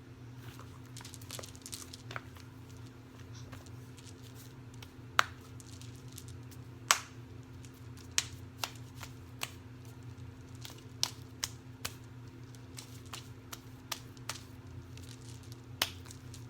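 Small plastic pop-it toys and keychains being handled: scattered clicks and taps, two sharper ones about five and seven seconds in, over a steady low hum.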